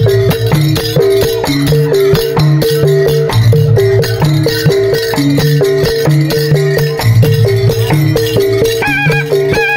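Traditional Madurese music for the dancing horses: a fast, steady percussion beat with a repeating pattern of low, gong-like pitched notes. A high reed wind melody comes in near the end.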